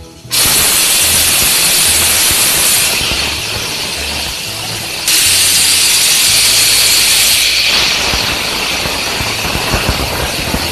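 Aluminium stovetop pressure cooker whistling: steam blasting out past the weight valve in a loud hissing whistle, with a second surge about five seconds in. Each whistle marks a release of built-up pressure; the dal is cooked to a count of three whistles.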